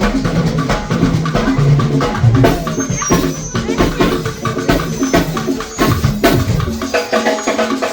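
Music with a drum kit and percussion playing a busy beat over a bass line; the bass drops out shortly before the end.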